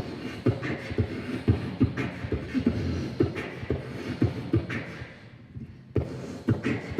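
A quick, beatbox-like rhythm of dull thumps and sharp clicks, several hits a second, easing off about five seconds in and starting again near the end.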